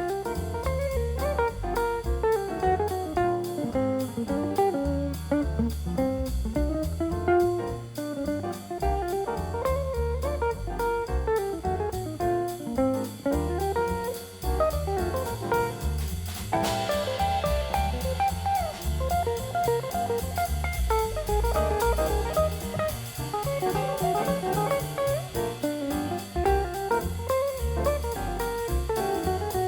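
Instrumental background music with guitar and drums, changing texture about two-thirds of the way through.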